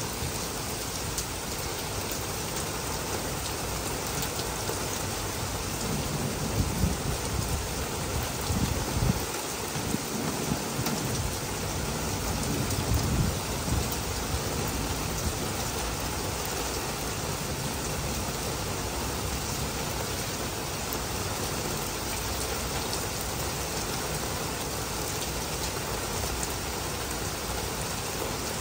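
Heavy rain falling steadily. A low rumble of thunder rolls through for several seconds about a quarter of the way in.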